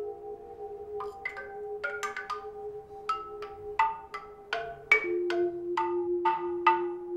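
Cave stalactites and calcite draperies struck with a curved bone and played as a lithophone. A quick, uneven run of ringing notes at several different pitches, roughly two or three strikes a second, each ringing on over long sustained tones.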